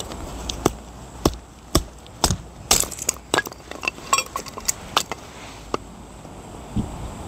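A series of sharp knocks and clinks, some with a brief ringing tone: about every half second at first, then irregular, dying out about six seconds in.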